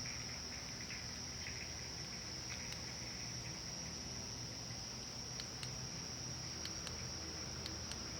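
Crickets chirping in a steady, unbroken high chorus, with a few faint clicks in the second half.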